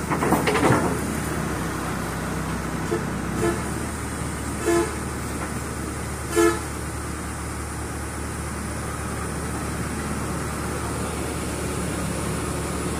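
Excavator diesel engine idling steadily, with three short horn toots, the last two louder, about three and a half, five and six and a half seconds in. A brief loud rattle comes right at the start.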